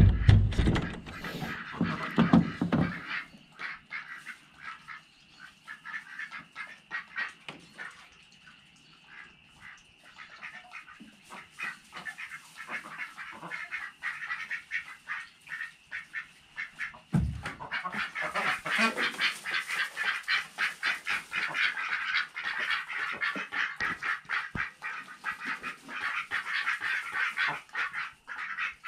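A wooden door with a metal latch being unlatched and pulled open, rattling, in the first few seconds. Then a flock of domestic ducks quacks in quick, overlapping calls that grow louder and nearly continuous in the second half, with a single thump a little past halfway.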